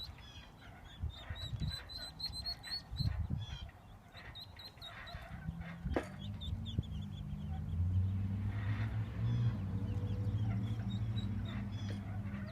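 Faint, quick high chirps from birds, then a single sharp click about six seconds in and a steady low hum that rises and stays to the end.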